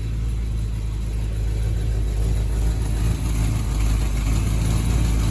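1983 Chevy Silverado's engine idling steadily through dual exhaust with short glass-pack mufflers, warmed up. It carries the rattle that appears once the engine is hot and grows louder the longer it runs, which the owners take to be heat related.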